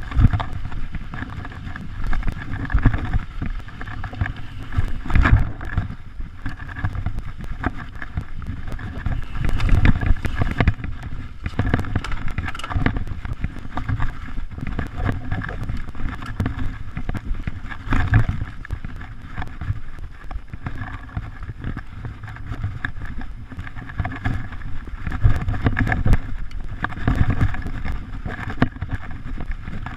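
Mountain bike ridden over a bumpy dirt trail: the bike rattles and knocks continually over the bumps, with tyre noise and wind rumbling on the microphone, heavier at a few rough stretches.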